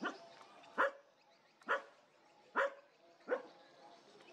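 A dog barking: five sharp barks, a little under a second apart.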